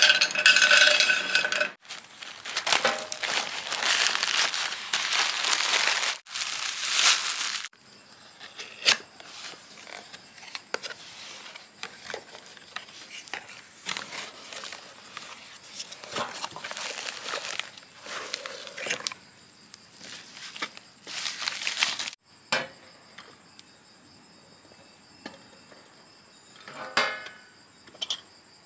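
Packaging being handled: a cardboard box's flaps opened and plastic wrapping crinkled and torn, with irregular rustling and clicks. Near the end a glass tea mug with a strainer lid clinks a few times as it is handled.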